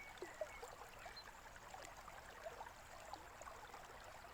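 Faint stream flowing and trickling, with a few short high bird chirps over it.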